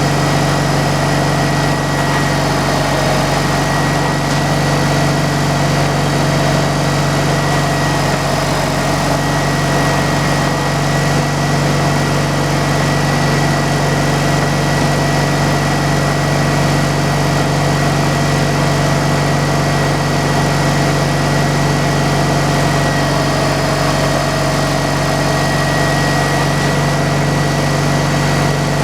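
An engine running steadily at an even speed, a low drone with a thin high whine over it that never changes.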